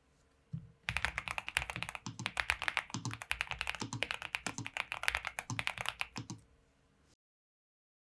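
Fast typing on a NuPhy Halo75 V2 mechanical keyboard with NuPhy Lemon 55gf tactile switches, factory-lubed with POM stems: a dense run of keystroke clacks with deeper thuds mixed in. The typing starts about a second in and stops about six and a half seconds in.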